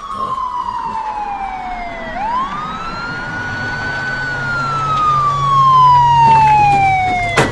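Police siren wailing: the pitch rises quickly, then falls slowly for about three seconds, twice over. A low engine hum runs underneath and grows louder in the second half, and there is a sharp click near the end.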